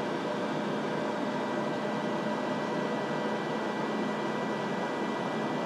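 Cosori 26-quart Wi-Fi air fryer oven running steadily while it preheats: an even fan whir with a faint hum.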